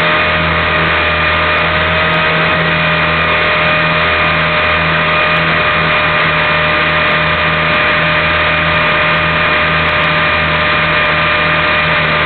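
Align T-Rex 450 Pro electric RC helicopter running, its motor and gears giving a steady high whine over the rotor noise, holding one pitch throughout.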